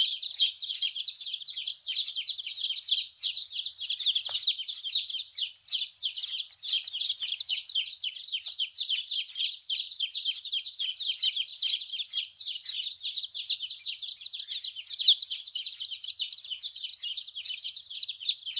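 A group of domestic chicken chicks peeping continuously: many short, high-pitched chirps that slide down in pitch, overlapping one another in a dense, unbroken chorus.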